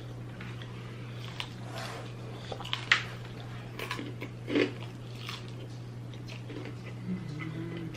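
Close-up chewing of a hot fried cheeseburger egg roll, with bites, wet mouth noises and smacking in scattered short bursts, the loudest about three seconds in and again around four and a half seconds. A steady low hum runs underneath.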